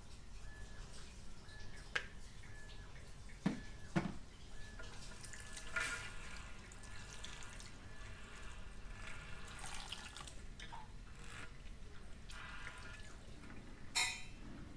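Water from a salon shampoo basin's handheld spray hose running over wet hair and dripping into the basin, with a few sharp clicks about two to four seconds in and a short louder splash near the end.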